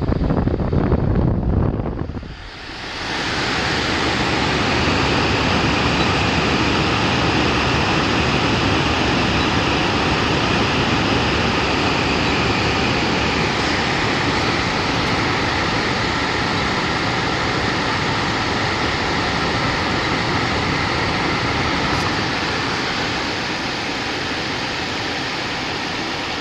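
LG portable air conditioner running, its fan blowing a loud, steady rush of air with a faint hum under it. The sound dips briefly about two seconds in, then settles into the even rush.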